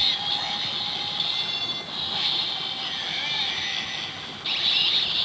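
Kamen Rider Build Driver toy belt playing its electronic sound effects through its small built-in speaker. The sound is harsh and noisy, with a fresh loud burst about four and a half seconds in.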